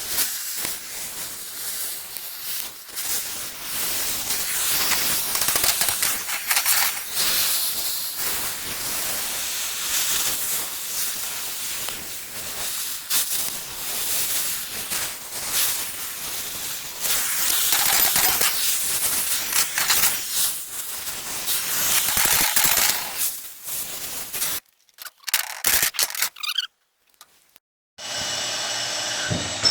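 Oxy-fuel cutting torch hissing as it cuts through thick steel plate, with a rough, crackling edge to the hiss. It cuts off about 25 seconds in.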